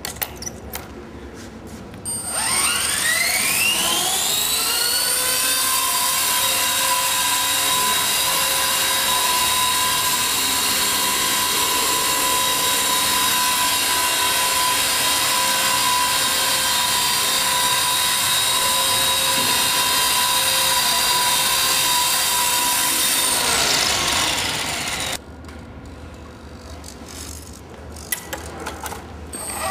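Skyartec radio-controlled model helicopter's motor and rotor spooling up with a rising whine about two seconds in. It holds a steady high whine for about twenty seconds, then winds down and stops near the end. A few handling clicks come before and after the run.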